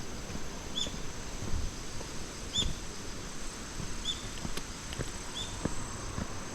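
Insects trilling steadily and high-pitched, with a short high chirp repeating about every second and a half, over scattered low thumps.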